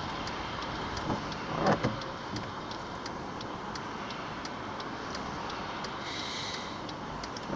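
Steady car cabin noise: the engine and tyres on the road heard from inside the car, with a brief louder sound about two seconds in.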